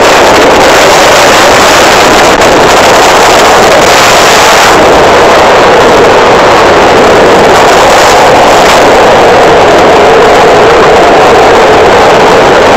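Loud, steady wind rush on the microphone of a moving motorcycle, mixed with the motorcycle's engine running.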